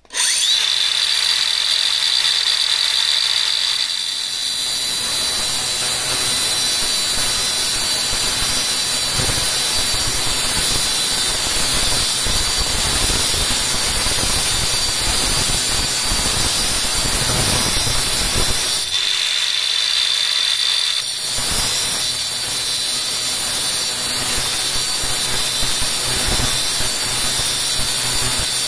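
Angle grinder with a diamond cut-off wheel cutting through a thin stainless steel strip: a loud, steady high whine over the hiss and rasp of the cut. Around two-thirds of the way through, the cutting noise eases for a couple of seconds while the wheel keeps spinning, then the wheel bites again.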